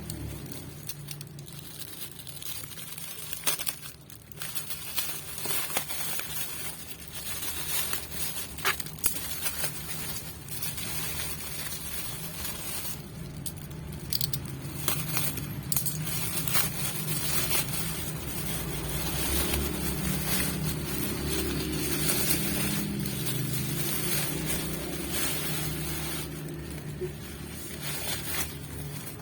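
Crinkling and rustling of shoe-box packaging being handled, with scattered sharp clicks and taps over a steady low hum.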